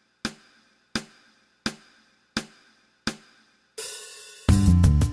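Background music: a song intro with a sharp percussion hit repeating about every 0.7 s. Near the end a cymbal swell leads into the full band with drums and bass.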